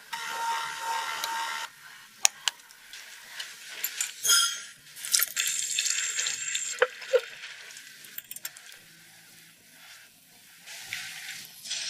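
Whipping cream poured from a carton into a bowl for about the first second and a half. In the middle, liquid bubbles and fizzes in a saucepan on a gas hob. Near the end, cream is poured into a glass jug.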